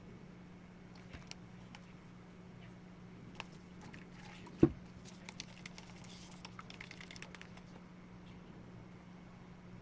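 Plastic paint cups being handled on a wooden worktable: a few light clicks, one sharp knock about halfway through, then a run of small clicks and rustles, over a steady low hum.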